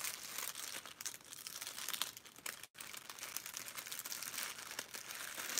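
Crinkling and rustling of a small clear plastic jewelry bag being handled, irregular crackles throughout, with the sound cutting out for an instant about halfway.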